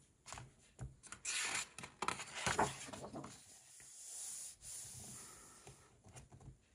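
Paper rustling as a page of a large square paperback colouring book is turned over, with a few crisp crackles. After that come hands sliding across the open spread to press it flat, a soft hiss that fades away.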